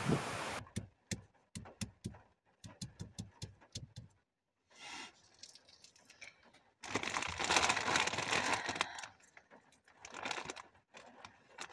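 Wind on the microphone for the first moment, then hands peeling a small food item by hand inside a car: a run of sharp little clicks and crackles, then loud plastic crinkling from a zip bag about seven seconds in, and again near the end.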